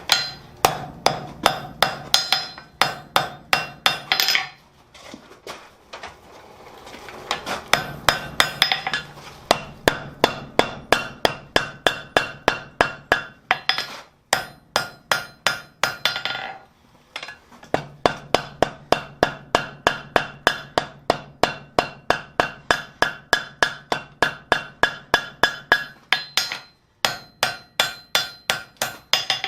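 Hand hammer striking hot steel on an anvil in rapid runs of about three blows a second, the anvil ringing with each blow, with short pauses between runs: forge welding the fluxed scarf joint of a tong-ring link and dressing the weld.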